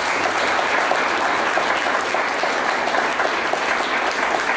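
Audience applauding: steady, dense clapping from a roomful of people.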